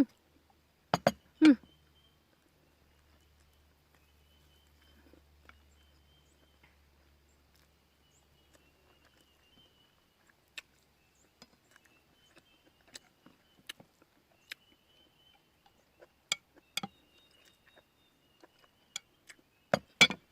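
Someone eating: scattered sharp clicks and clinks, like utensils or dishes being handled, loudest twice about a second in and again near the end, over a faint low hum during the first several seconds.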